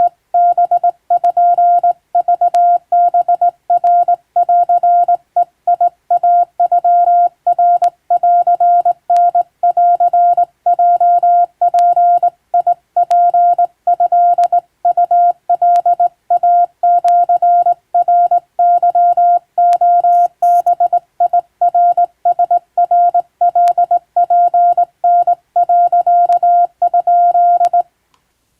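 Hand-keyed Japanese (wabun) Morse code: a single steady beep switched on and off in irregular dots and dashes, sending continuously and stopping near the end.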